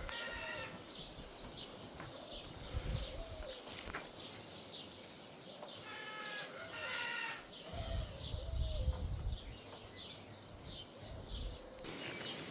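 Many small birds chirping in quick, short high notes, with a longer bleat-like call at the start and another about six seconds in.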